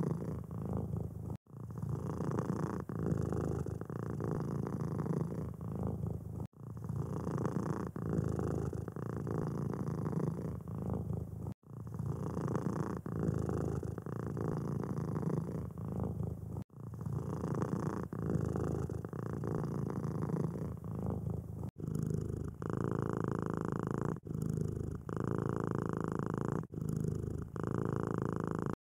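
Domestic cat purring steadily at close range, broken by brief dropouts every few seconds where the footage is spliced. In the last several seconds a different purr comes in, with a steadier, higher hum over it.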